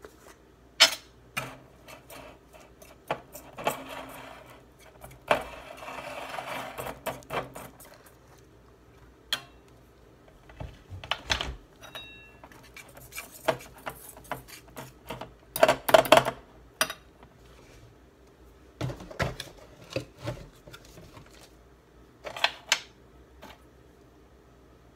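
Wire whisk clinking and scraping against a stainless steel bowl as powdered sugar and lemon juice are stirred into a thick icing paste. The strokes come irregularly, with a longer stretch of scraping a few seconds in and the loudest clanks about two-thirds of the way through.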